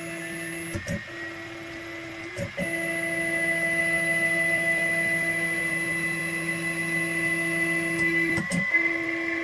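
Stepper motors of a desktop CNC router driving its lead-screw axes in a homing cycle: a steady whine, broken by short pauses with clicks about a second in, about two and a half seconds in and near the end, as one axis stops and the next moves.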